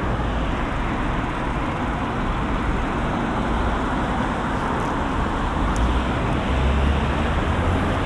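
Steady city street traffic noise, with a deeper vehicle rumble swelling about six and a half seconds in.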